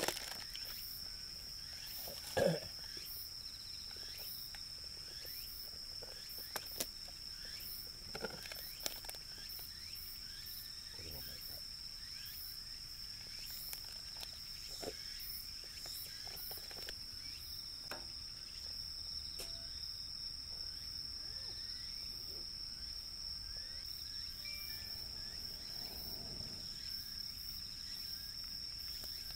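Insects calling in a steady, high-pitched drone, with a few scattered knocks and clicks on top, the loudest about two and a half seconds in.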